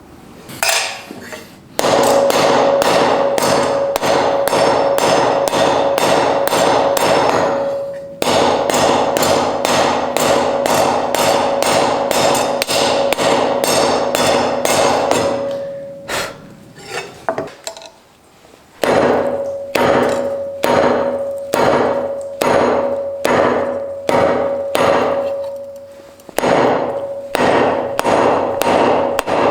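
Hammer blows on hot iron at the anvil, struck quickly and evenly in several long runs with short breaks between them, the steel ringing with each blow.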